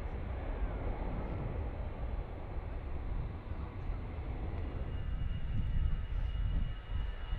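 Jet engine rumble of an Airbus A320-family airliner climbing out after takeoff. About five seconds in, a steady high engine whine joins it from an Air France A320 on the runway.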